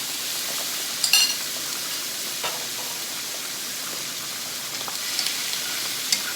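Squid stir-frying in hot oil in a pan: a steady sizzle, with a few sharp metal clinks of stirring against the pan about a second in and again near the end.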